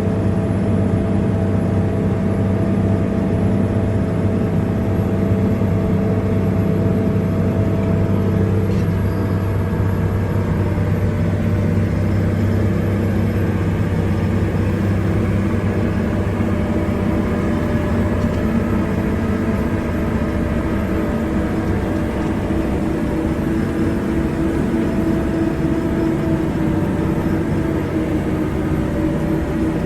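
A large engine running steadily at an even speed, a low hum that holds its pitch throughout.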